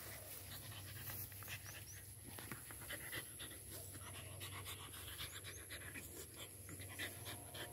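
A dog panting faintly, with scattered short rustles and clicks as it rolls in the grass.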